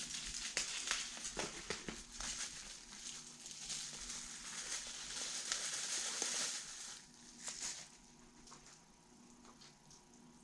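Packaging being unwrapped by hand, crinkling and crackling with many small clicks, then going much quieter about seven seconds in, with a few light taps.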